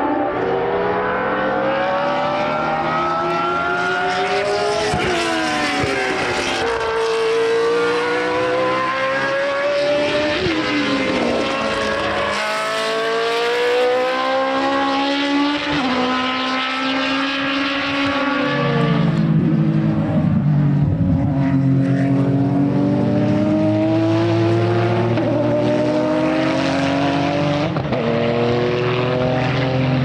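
Several racing car engines at high revs on track, overlapping. Their pitch climbs through the gears with sudden drops at each shift, some notes falling away as cars pass. About two-thirds of the way in, a deeper engine note takes over.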